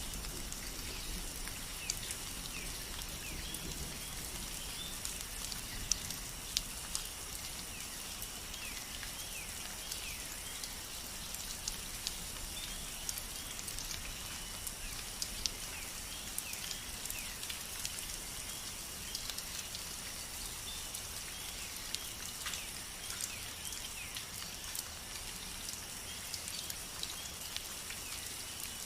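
Rain falling steadily, with sharp drips of individual drops landing close by, and short high chirps scattered throughout.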